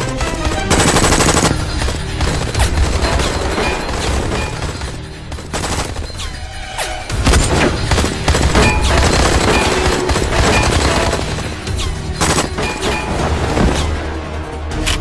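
Film soundtrack of a firefight: bursts of automatic rifle fire and bullet impacts over a tense music score. There is a dense rapid burst about a second in, a short lull around six seconds, then heavier shooting again.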